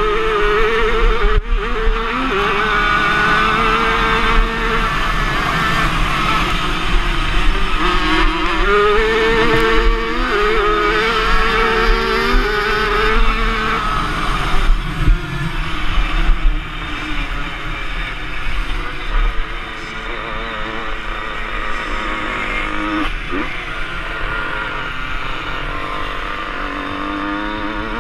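Motocross motorcycle engine heard from on board while racing, revving up and dropping back repeatedly as it accelerates and shifts through the corners; a little quieter in the second half.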